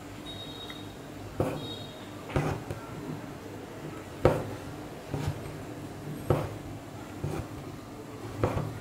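Hand-embroidery needle punching through taut, frame-stretched fabric as the thread is drawn through, a sharp tap about once a second, the loudest about halfway through.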